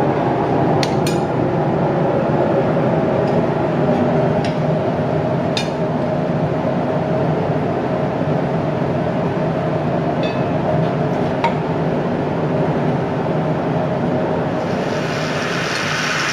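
Steady mechanical drone of shop equipment running, with a few light metallic clinks scattered through it.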